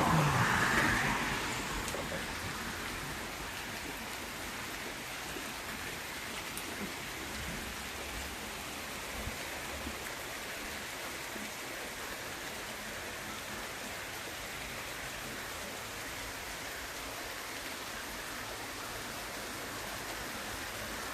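Steady rain falling, an even hiss with no distinct events. It is a little louder for about the first second and a half, then stays level.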